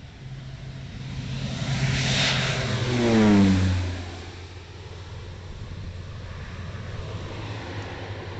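Air Tractor AT-502 turboprop crop duster making a low flyby: its turbine and propeller sound grows loud, peaks about three seconds in, and the propeller tone drops sharply in pitch as it passes, then it fades to a steady lower drone as it moves away.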